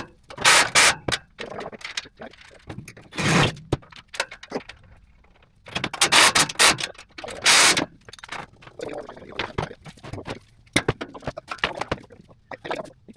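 Irregular scraping and rubbing strokes, each lasting up to about a second, with a few sharp clicks in between.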